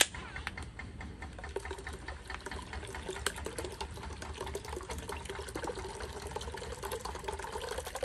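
Liquid pouring and splashing into a container, with many small splashes and clicks throughout.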